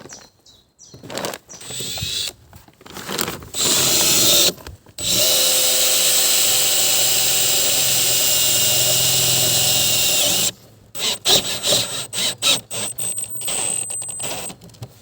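Power drill driving self-drilling screws into sheet metal: a few short bursts, a steady run of about five seconds with a whining motor, then a string of quick trigger pulses.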